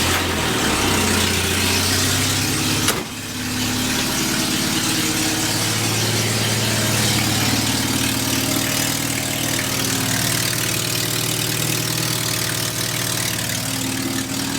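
1979 Volkswagen Rabbit's gasoline four-cylinder engine catching at the start and then idling, loudly and steadily after a brief dip about three seconds in. The loud noise is an exhaust leak, which the owner suspects is at the gaskets from the manifold to the downpipe.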